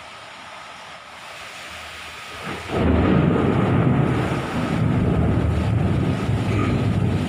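Thunderclap: a low hiss, then a sudden crack about two and a half seconds in that breaks into a loud, long rolling rumble.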